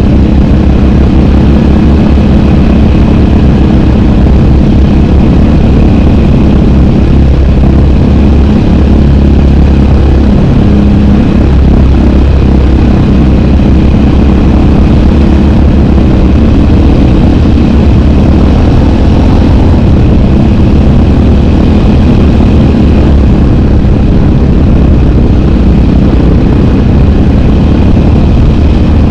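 Loud, steady sound of a Yamaha sport quad's single-cylinder four-stroke engine running under way, held at a fairly even speed.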